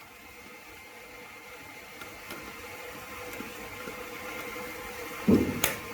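Fiber laser welding machine and its air supply running with a steady hum and faint whine, growing slowly a little louder as the assist-gas pressure is turned up. Near the end comes a thump followed by a sharp click.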